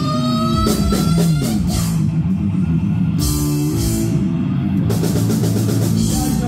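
Heavy metal band playing live, loud: distorted electric guitar and bass over a drum kit, with cymbal crashes several times.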